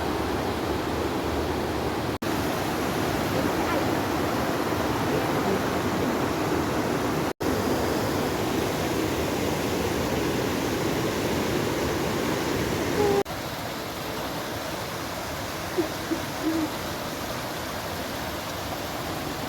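River water rushing steadily over rocks, heard in several spliced takes that cut briefly and change a little in tone, with the last stretch slightly quieter. A few short pitched sounds come through near the end.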